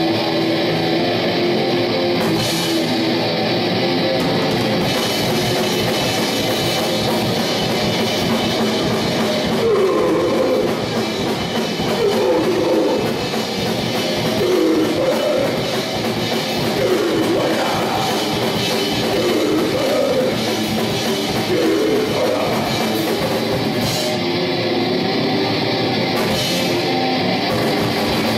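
Live hardcore band playing: heavily distorted electric guitar and a drum kit pounding out a fast, loud, continuous wall of noise.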